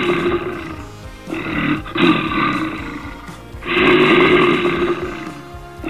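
Lion roaring several times, each roar about a second long, over background music.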